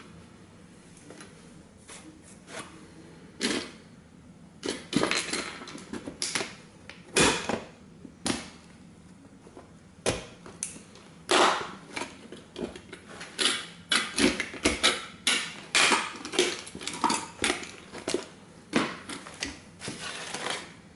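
Heavy combat-boot soles stamping on and grinding the wreckage of a vintage tin-plate toy car on a wooden board: irregular crunches, scrapes and metallic clatter of tin fragments, coming thicker and faster in the second half.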